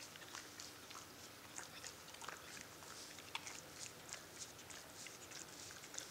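A large dog's mouth working close to the microphone: faint, irregular clicks and smacks of chewing and mouthing.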